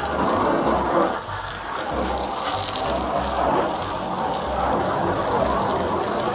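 Garden hose spraying a jet of water against the inside wall of an empty plastic tub, a steady splashing gush.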